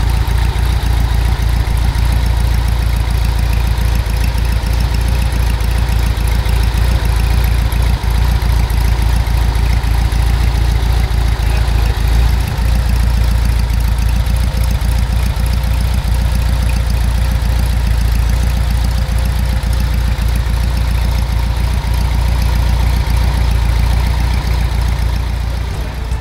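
Air-cooled flat-four engine of a 1954 Volkswagen Beetle idling steadily, heard through its twin-tip exhaust.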